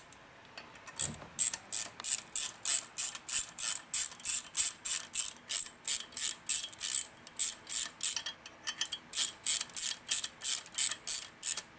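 A ratcheting hand tool clicking steadily, about three or four clicks a second, as a screw is driven into an aluminium Harley engine case beside the main bearing insert. There is a brief pause about two-thirds of the way through.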